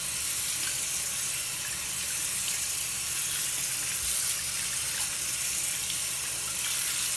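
Tap water running steadily over a motorcycle helmet face shield held under it in a sink, rinsing off the soap.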